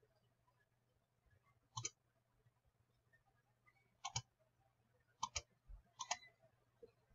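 Computer mouse clicking four times, three of them quick double clicks, over a faint steady low hum.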